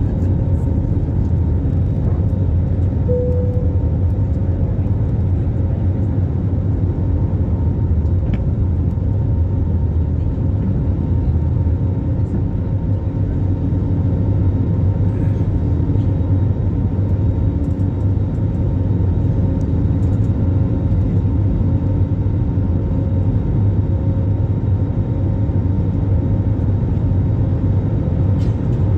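Airliner cabin noise in flight: a steady low drone of engines and airflow, with a brief faint tone about three seconds in.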